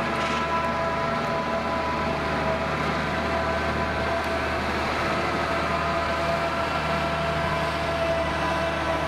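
New Holland skid-steer loader running steadily: a constant low engine hum with a high, steady whine over it that does not change.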